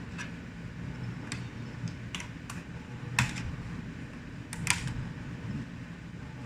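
Sharp plastic clicks, about seven spread unevenly over the few seconds, as a flat screwdriver pushes on the latches of a Dell Inspiron 15 3576 laptop keyboard and pries it up out of the case.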